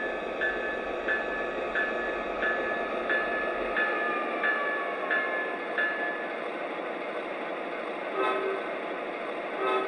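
O-scale model train running on its track with a steady rumble. A repeating ding sounds about every two-thirds of a second and stops about six seconds in, and near the end the locomotive's sound system gives two short horn toots.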